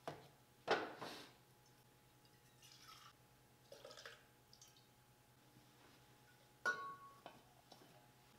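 Scattered knocks and clinks of parts and tools being handled on a workbench: the loudest about a second in, softer ones in the middle, and a short ringing clink near the end, over a faint steady hum.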